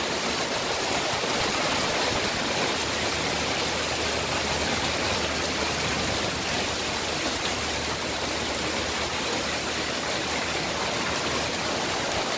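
Steady rushing noise of water, running evenly with no breaks.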